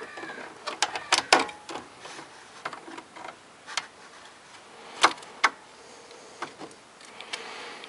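Irregular metal clicks and taps from pliers working a spring hose clamp onto a hose fitting at a car radiator, with two sharper clicks about five seconds in.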